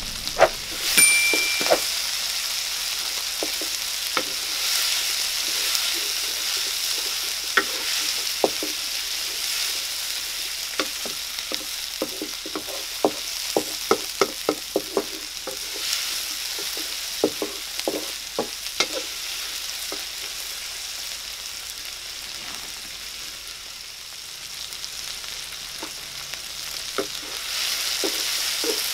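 Onion, tomato, banana pepper and green chilli sizzling in oil in a wok, stirred with a wooden spatula that knocks and scrapes against the pan in quick, irregular taps, busiest in the middle stretch.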